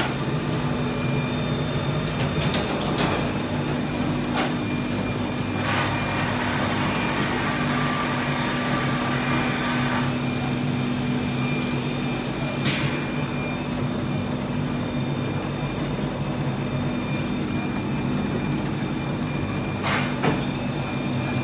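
Wohlenberg Quick Binder hotmelt perfect-binding machine running: a steady mechanical hum with a few sharp clacks. A hiss rises for a few seconds from about six seconds in.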